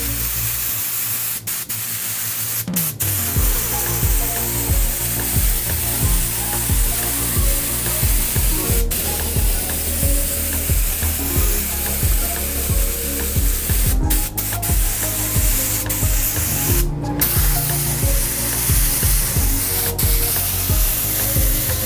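Airbrush spraying paint in a steady hiss, cutting out briefly a few times as the trigger is released. Background music with a steady beat plays underneath.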